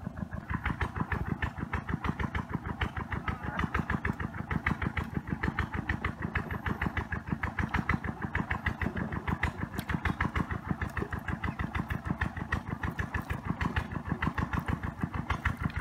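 Small wooden fishing boat's engine running with a steady, rapid chugging.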